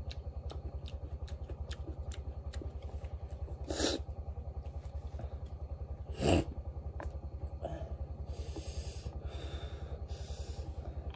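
A small engine running steadily with a rapid, even low chugging. Two brief louder noises come about four and six seconds in.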